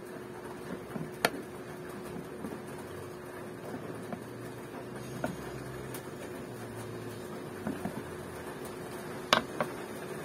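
DIY arbor press (fret press) being worked down onto guitar fretwire to seat the frets back into the fretboard. It gives sharp metallic clicks, two loud ones about a second in and near the end, with softer ones between, over a steady background hum.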